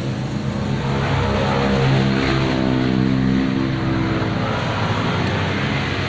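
A motor vehicle's engine running nearby, a steady pitched hum that rises and falls slightly in pitch through the middle and fades toward the end.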